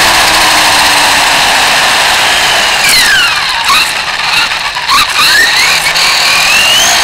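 RC car's motor and drivetrain whining under an onboard microphone, with a steady rush of wheel noise. In the middle the whine drops sharply and climbs again twice as the car slows and speeds back up, then keeps rising near the end.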